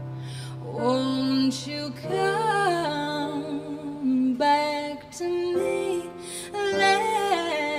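A woman singing a slow, sustained melody over a digital keyboard accompaniment. A held low keyboard note fades out at the start, and the voice comes in about a second in with several long sung phrases.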